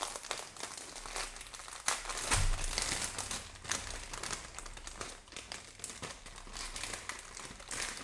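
Clear plastic packaging crinkling and rustling irregularly as it is handled and pulled open around a bundle of small bags of diamond-painting drills. The crinkling is loudest about two seconds in.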